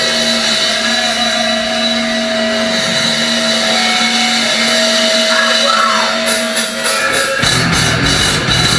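Crossover thrash band playing live through loud amplifiers: a steady drone of held guitar tones and feedback, then from about seven seconds in the drums and distorted guitars come in at full volume.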